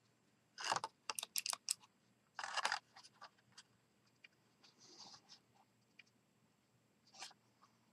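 A sheet of cardstock being handled and shifted over a craft mat, with short papery rustles and a quick run of small sharp clicks about a second in.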